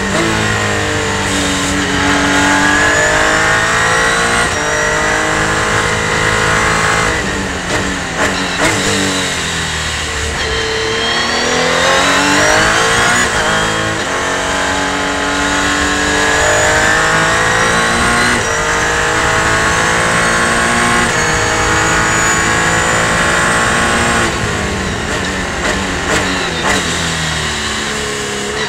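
Revolution 500 race car's engine heard from inside the cockpit, accelerating hard with rising revs and quick upshifts. It falls back under braking with short rev blips on downshifts, about 8 seconds in and again near the end.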